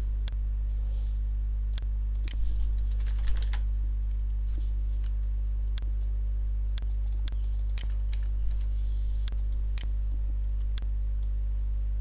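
Typing on a computer keyboard: a short run of keystrokes about two to three and a half seconds in, with scattered single key or mouse clicks before and after. Underneath is a steady low electrical hum.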